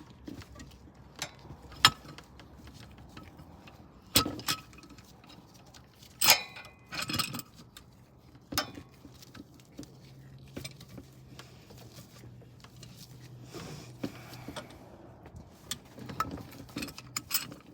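Scattered metallic clinks and knocks of hand tools and brake parts being handled, a few sharp ones standing out, with a faint steady low hum for a while in the second half.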